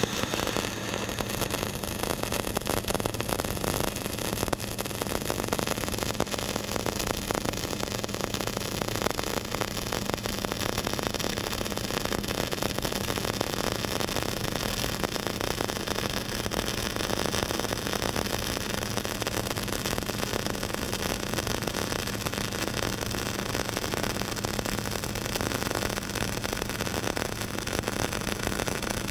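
Flux-cored wire-fed arc welding: the arc crackles steadily without a break, over a steady low hum.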